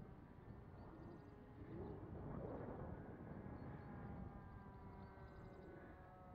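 Kaos 60 RC model airplane's motor droning faintly overhead, its pitch drifting slowly as the plane flies. A rough wind rumble on the microphone swells about two seconds in.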